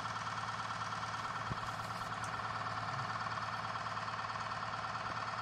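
Steady machine hum with a constant whine above it, unchanging throughout, and a soft click about one and a half seconds in.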